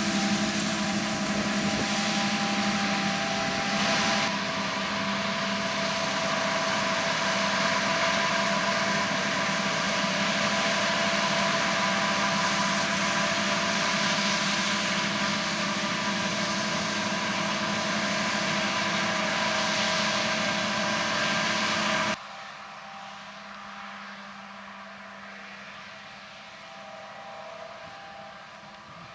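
John Deere harvest machinery running steadily: a loud, even engine-and-machine noise with a constant hum and whine. About twenty-two seconds in it drops suddenly to a quieter engine sound.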